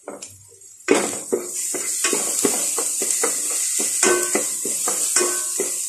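Sautéing in a hot pan: oil sizzling, starting suddenly about a second in as food goes in, with a spatula scraping and tapping against the pan about three times a second.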